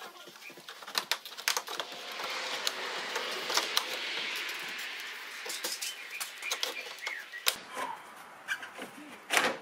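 Plastic trim being worked loose by hand and with a plastic pry tool: the cover panel above the grille scrapes and rubs for a few seconds, with many sharp clicks and snaps from its retaining clips, two louder snaps near the end.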